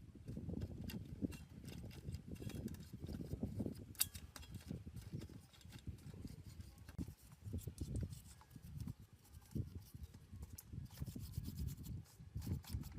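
Irregular rubbing and scraping strokes by hand, coming in quick clumps with scattered light clicks.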